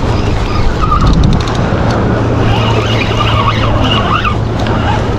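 Wind rushing over the microphone, with a steady low hum underneath and a few short wavering high tones in the second half.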